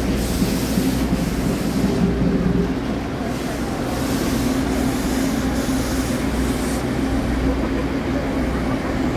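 CK124 steam locomotive running slowly into a station: a steady low rumble with steam hissing in uneven pulses, strongest in the first two seconds and again in the middle.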